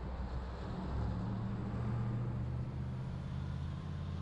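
Car driving on a wet road: a steady low rumble of engine and road noise with a hiss of tyres on wet pavement above it.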